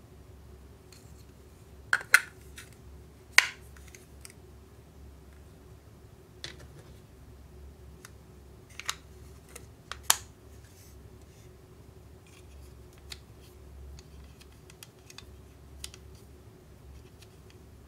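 Hard plastic parts of a miniature toy kitchen handled and snapped together, giving sharp clicks: the loudest a quick pair about two seconds in and one about three and a half seconds in, with a few more in the middle and light plastic handling between.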